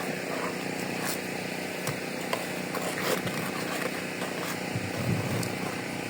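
A motor or engine hums steadily, with a few light clicks and taps over it.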